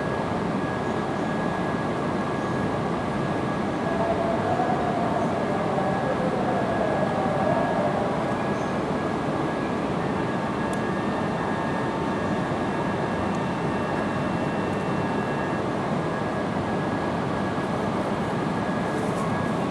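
E6 series Shinkansen train standing at the platform, its onboard equipment humming steadily with a thin, constant high whine over the noise.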